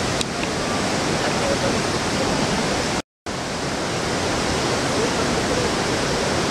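Steady rushing water noise, an even hiss spread across the whole range, with no rhythm or pitch to it. It cuts out completely for a moment about three seconds in.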